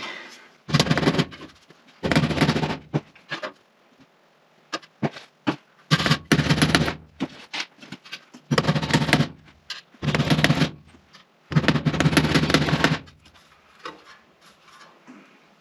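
Hammer driving roofing nails through a sheet-metal flue wall thimble into the wood framing, in six bursts of quick blows about a second each, with a few lighter taps between them.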